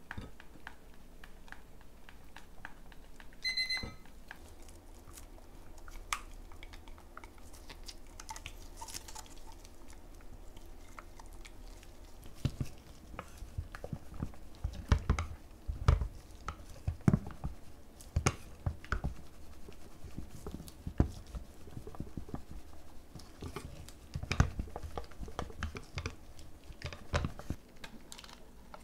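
Kitchen prep handling sounds: scattered light clicks, taps and knocks of utensils and containers, busier and louder in the second half. A short electronic beep sounds about three and a half seconds in.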